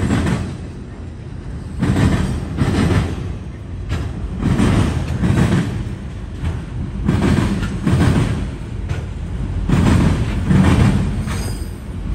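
Freight train of autorack cars rolling past, its steel wheels rumbling and clattering on the rails. The clatter swells in pairs of loud beats, the pairs repeating about every two and a half seconds as the cars go by.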